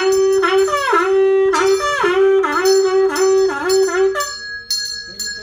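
A Taoist ritual horn blown in a run of held notes, each dipping in pitch before the next, over a small hand bell ringing steadily; the horn stops about four seconds in, leaving the bell.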